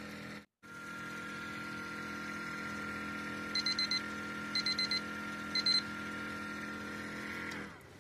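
Vortex mixer shaking a Bioanalyzer chip with a steady humming buzz. Partway through, a digital lab timer beeps in three bursts of quick high beeps, signalling that the one-minute mix is done. Near the end the mixer is switched off and winds down, its pitch falling until it stops.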